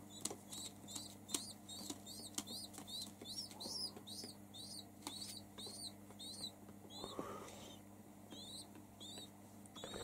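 Feral pigeon squab begging: a long run of thin, high peeping squeaks, about three a second, with a short break about three quarters of the way through. A few light clicks sound over the first few seconds.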